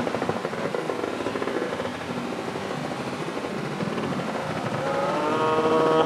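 Steady engine noise, with a person's long held shout starting about five seconds in.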